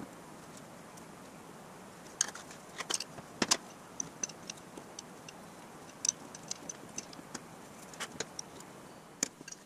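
Light metallic clicks and clinks from an aluminum gas cap and pliers being handled on a metal workbench: scattered, irregular taps starting about two seconds in, over quiet room tone.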